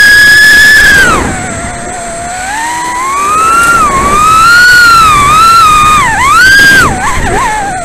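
Leader 120 micro quadcopter's brushless motors and Gemfan 2540 propellers on 3S, whining as throttle changes. A high whine drops sharply about a second in, climbs slowly, then swoops down and up several times near the end.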